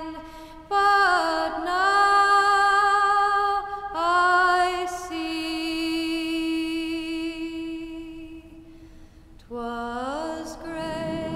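Background song: a solo singing voice holding slow, long notes that glide between pitches, with a brief lull about nine seconds in.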